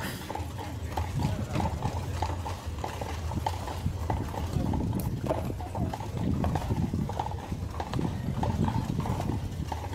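Horses' hooves clip-clopping on the street as horse-drawn carriages move along, many irregular hoof strikes over a steady low rumble.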